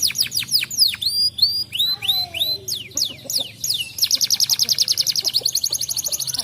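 Domestic canary singing: fast trills of repeated downward-sweeping notes, breaking in the middle into a slower run of separate falling whistles, then a very rapid, even rolling trill.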